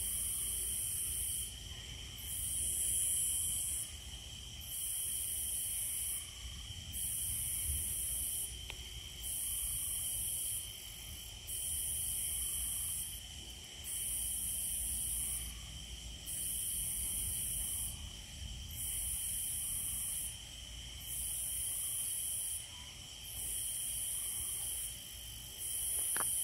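Night insect chorus: a high, rasping chorus that swells and fades about every two seconds, over the steady high trills of crickets.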